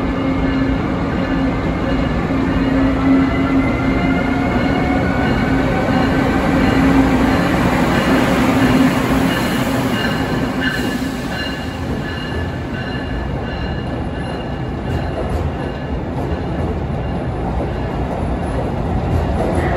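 Amtrak Siemens ACS-64 electric locomotive and its Amfleet passenger cars rolling past close by in an underground station, a steady rumble of wheels on rails. A steady low electric hum and thin rising whines sound while the locomotive is near and fade about ten seconds in, leaving the rumble of the passing coaches.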